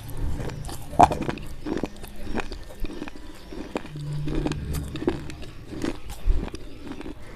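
Slate pencils coated in white khadi clay paste being bitten and chewed close to the microphone: a string of sharp, irregular crunches and snaps, the loudest about a second in.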